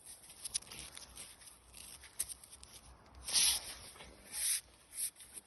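Scraping and rubbing of a tool working in a blocked drain, with small clicks throughout and two louder short scrapes about three and four seconds in.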